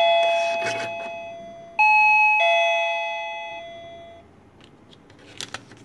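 Wireless Melody Box kitchen-order alarm chiming a doorbell-style ding-dong, a higher note then a lower one, twice, as the printer's sensor signals a new order; the notes ring on and fade out by about four seconds in. A few short clicks follow near the end.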